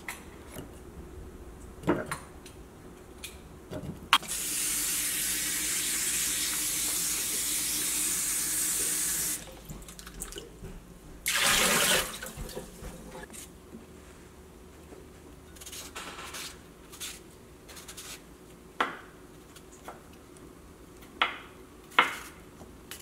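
Kitchen pull-down faucet running steadily for about five seconds, then a second short burst a couple of seconds later, while a ceramic bowl is rinsed under it. Near the end come a few sharp clicks as a cucumber is cut with a knife.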